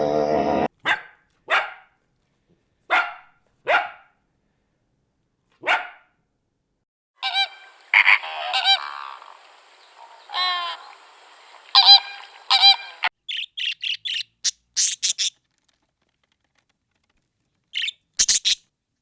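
Waterfowl honking: a run of short separate calls, then a denser stretch of louder calls about halfway through, followed by a few short high chirps near the end.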